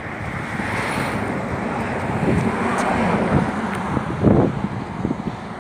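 Wind buffeting the microphone in uneven gusts, with a stronger gust about four seconds in.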